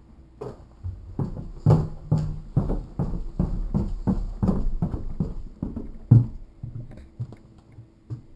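Footsteps going down a flight of indoor stairs, about two steps a second, ending with a heavier step about six seconds in, then a few softer steps on the floor.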